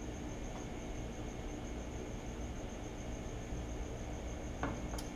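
Quiet shop background with a steady low hum and a faint, evenly pulsing high trill, and two light clicks near the end. The lathe's three-phase motor is not turning yet while the newly powered variable frequency drive sits through its first few seconds after switch-on.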